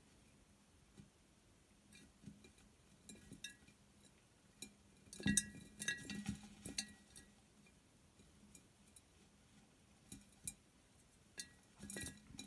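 Mice scrabbling and scuffling inside a glass jar: faint, irregular clicks and taps of claws and bodies against the glass. The taps are busiest about five to seven seconds in and again near the end.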